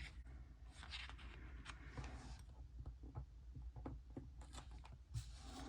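Faint rustling and light scattered ticks of paper sticker sheets being handled and stickers being placed on a planner page.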